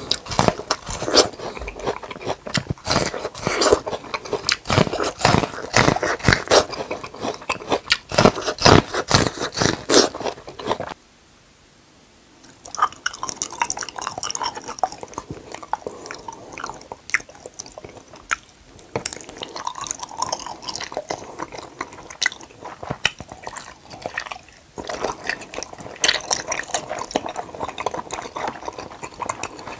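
Close-miked crunchy bites and chewing of super-sweet corn on the cob, the kernels snapping off in quick succession. After a short silence about eleven seconds in, softer wet, squishy chewing of a red jelly moulded like a rubber glove.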